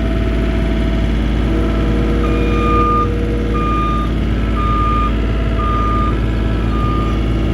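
Diesel skid steer's backup alarm beeping about once a second as the machine reverses, starting about two seconds in, over the steady running of the diesel engine.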